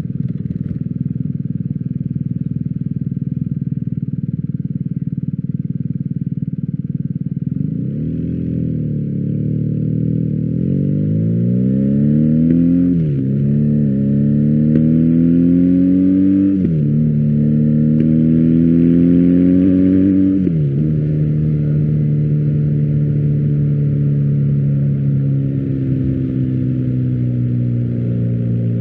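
BMW R1250GS boxer-twin engine through an Akrapovic exhaust. It runs steadily, then accelerates through three gears, the pitch climbing and dropping sharply at each upshift. Afterwards it settles into a steady cruise.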